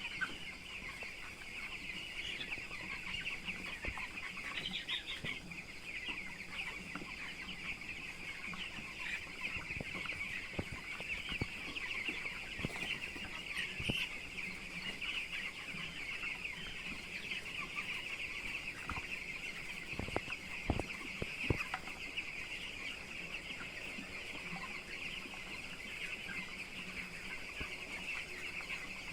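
A house full of 12-day-old broiler chicks peeping continuously in a dense, high-pitched chorus. A few sharp knocks come about twenty seconds in.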